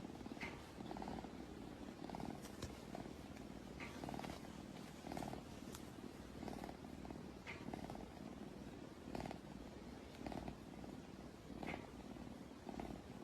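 Domestic cat purring, in a steady rhythm of breaths in and out, with a few faint clicks.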